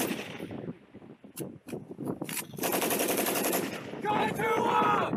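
7.62 mm M240B machine guns firing: a burst ending at the start, a few separate shots, then a rapid burst of about a second near the middle. A voice calls out near the end.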